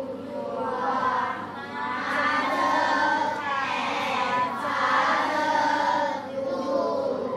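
A class of young children reciting together in unison, many voices overlapping in a loud sing-song chorus that swells and dips several times. It is a group recitation answering the teacher.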